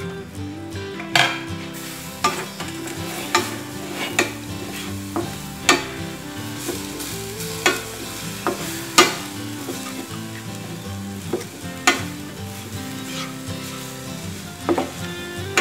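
Wooden spatula stirring grated coconut and melted palm sugar in a stainless-steel frying pan over heat, with sharp scrapes and knocks against the metal every second or so over a light sizzle. Quiet background music with a melody plays underneath.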